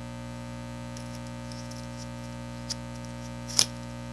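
Steady electrical mains hum, with faint crinkling of a plastic bag and a sharp click about three and a half seconds in as a DVI cable is handled.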